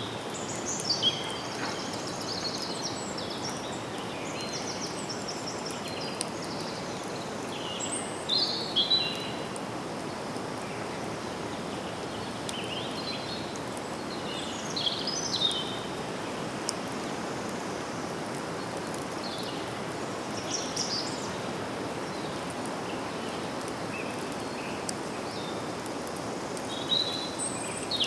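Forest ambience: several birds singing in short phrases every few seconds, including a quick trill, over a steady rushing hiss of wind in the leaves.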